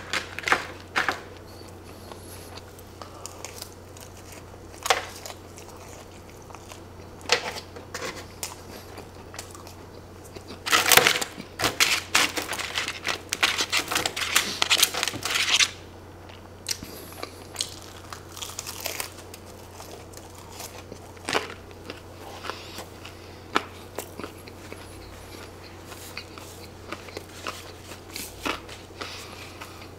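Close-miked eating sounds: a plastic fork stabbing and scraping fries in paper fry trays, and chewing, with scattered sharp clicks. The loudest stretch, from about 11 to 15 seconds in, is a dense run of crinkling and crackling as the fork digs into a paper tray of fries.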